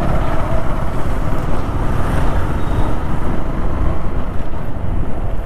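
Wind rushing over the microphone on a moving motorcycle, with road and traffic noise underneath; a steady, even rush with no distinct engine note or other events.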